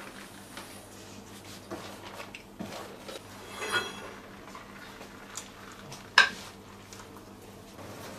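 Kitchen utensils and dishes clinking and knocking: a few light clicks, a ringing clink near the middle, and a sharper, louder knock about six seconds in.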